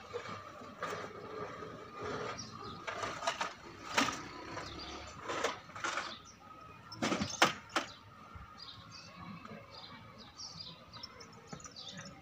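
Metal cooking pots and basins clanking and knocking as they are lifted off a cart and set down, the loudest clanks about seven seconds in. Birds chirp faintly in the later part.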